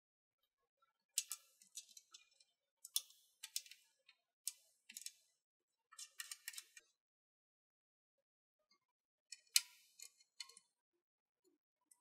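Light, sharp clicks and taps of acrylic mounting brackets and small bolts against a metal power supply case and frame as they are positioned and hand-tightened. They come in a few short clusters with quiet gaps between.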